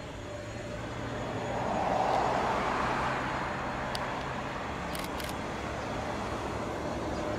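3ES5K electric locomotive hauling a freight train, its rolling noise swelling about two seconds in and then running on steadily over a low hum, with a few brief high clicks around the middle.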